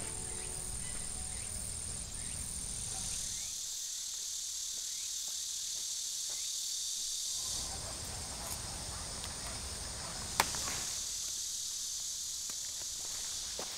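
Steady high-pitched chorus of insects such as crickets, with faint ticks scattered through it. A single sharp click about ten seconds in is the loudest sound.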